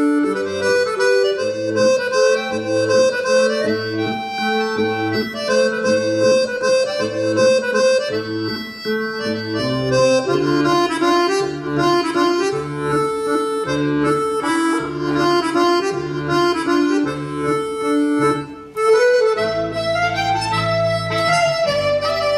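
Instrumental dance music with a reedy lead, accordion-like, playing a stepping melody over a steady alternating bass note about once a second. About 19 seconds in it drops briefly, then comes back fuller with held bass notes.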